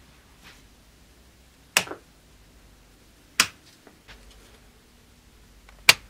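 Wall-mounted red rocker isolator switches being snapped on one after another: three sharp clicks, each about two seconds apart. A faint low hum comes up about four seconds in as power comes on.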